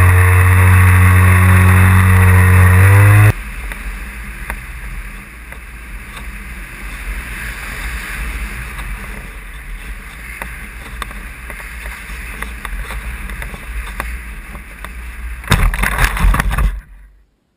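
Radio-controlled model aeroplane's motor and propeller running steadily, then cut off suddenly about three seconds in. Air rushes past with faint scattered clicks as it glides, and near the end there is a brief burst of scraping and rustling as it touches down and slides into the grass.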